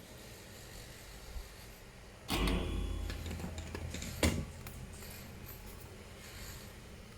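Handling noise from working on the laptop: a scraping, rubbing sound about two seconds in that lasts about two seconds, ending in a sharp click.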